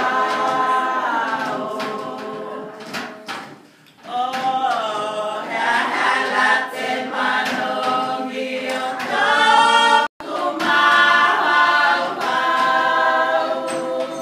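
A group singing a Tokelauan action song together, holding long notes. The singing dips briefly about four seconds in.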